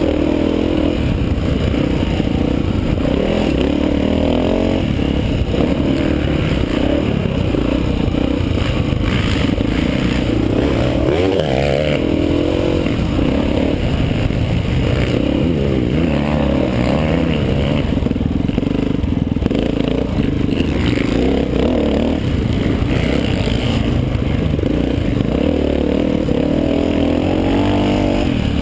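Honda XR500's single-cylinder four-stroke engine being ridden hard on a dirt track, its pitch rising and falling repeatedly as the rider opens and shuts the throttle through the gears. Heavy wind rush on the helmet-mounted camera runs under it.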